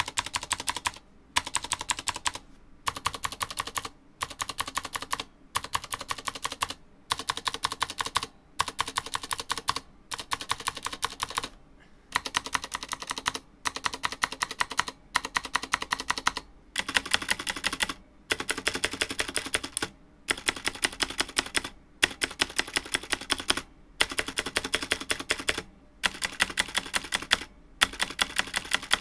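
Razer BlackWidow V3 TKL mechanical keyboard with clicky Razer Green switches being typed on rapidly in runs of about a second, mostly on the stabilized keys (Enter, Shift, spacebar). The stabilizers are unlubricated, so a metallic wire rattle mixes in with the switch clicks.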